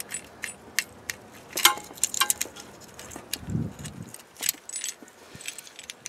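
Light metallic clicks and clinks of a small steel lock nut and the old water-pump pressure switch being handled by hand as they come apart, with a short low sound about three and a half seconds in.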